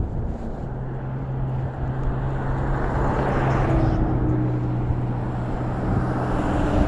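Road traffic: cars passing by, swelling about halfway through and again near the end, over a steady low hum.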